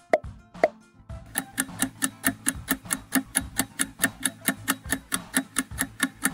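Two short pop sound effects about half a second apart, then a quiz countdown timer's ticking, about four to five even ticks a second, starting about a second in.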